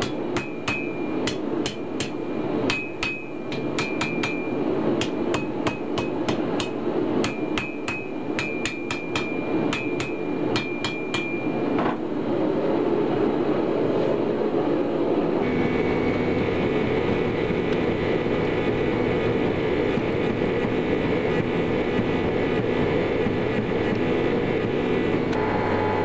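Hand hammer striking a red-hot cable-damascus steel blade on an anvil, in quick runs of blows that each ring off the anvil. After about twelve seconds the hammering stops and a steady roar of the forge takes over, growing louder a few seconds later.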